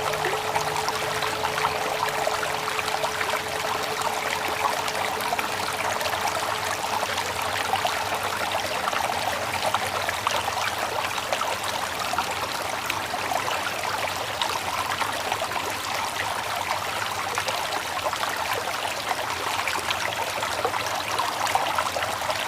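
Running water of a stream, trickling and steady. A low ringing tone from the last struck mindfulness bell fades out over the first few seconds.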